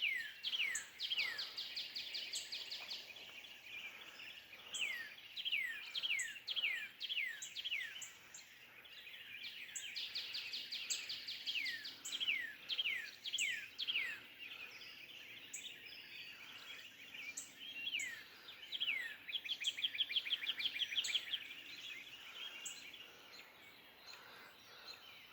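Songbirds singing at dawn in the woods: a series of clear whistled notes, each sliding down in pitch, repeated a few times a second, broken three times by fast high trills.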